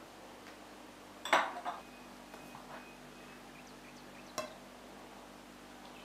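Glassware clinking as a small glass dish meets a large glass mixing bowl: one sharp clink about a second in with a lighter one just after, a few soft knocks, and another sharp clink later on.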